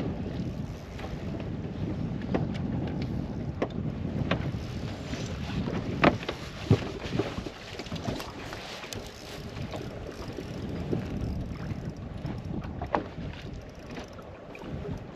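Wind buffeting the microphone on a bass boat over choppy water, with scattered sharp clicks and knocks, the loudest about six seconds in.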